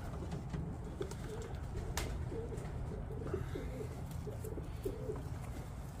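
Racing pigeons cooing in the loft: a string of wavering coos, with a single sharp click about two seconds in.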